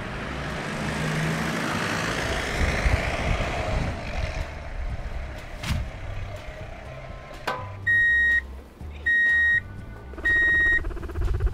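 Three loud reversing-alarm beeps, each about half a second long and about a second apart, in the second half, as a dump truck backs up to tip. Before them, a broad rushing noise swells and fades over the first few seconds.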